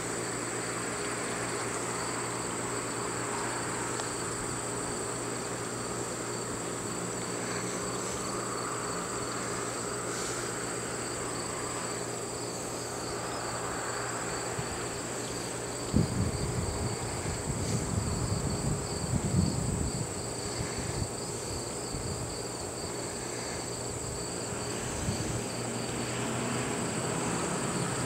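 Steady outdoor insect chorus: a high, even whine over a pulsing trill. About halfway through comes a few seconds of low rumbling and thumps.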